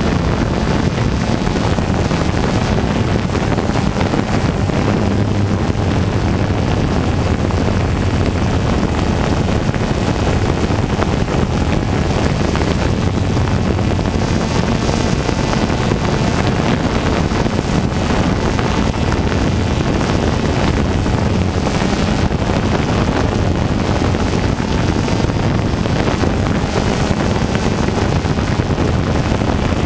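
Small drone's electric motors and propellers buzzing steadily in flight, heard close up from the camera it carries.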